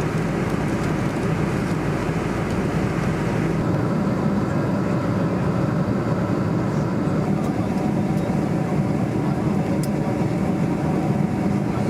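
Steady engine and airflow noise of a Boeing 747 in flight or on the ground. About four seconds in, the deepest rumble drops away while the rest of the noise carries on.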